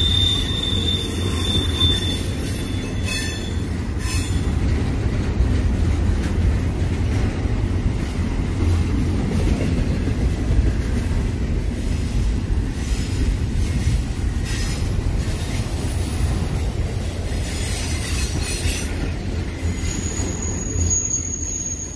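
Double-stack container freight train rolling past close by: a steady low rumble of steel wheels on rail. A high wheel squeal sounds at the start and again near the end, with a few sharp clacks about three seconds in.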